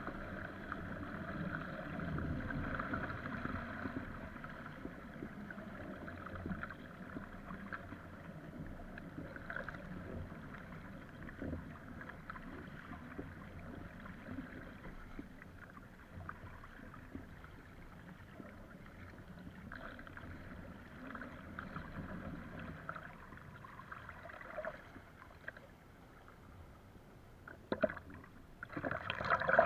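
Water splashing and rushing along the hull of a surfski being paddled through choppy wind waves. There are a few louder splashes near the end.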